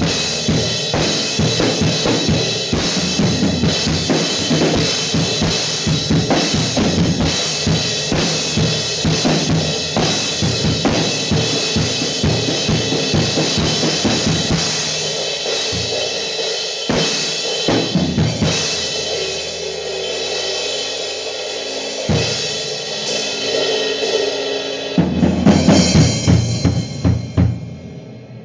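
Drum kit being played in a sound check: kick drum, snare, hi-hat and cymbals in a steady groove. It thins out for a few seconds about two-thirds of the way through, then comes back with a loud run of hits near the end.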